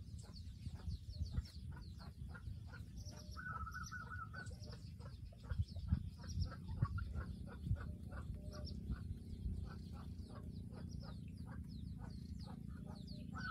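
Yard birds calling: a steady series of short clucks, typical of chickens, with high falling chirps from small birds and a brief choppy call a few seconds in. A low rumble on the microphone runs underneath, with a few louder bumps near the middle.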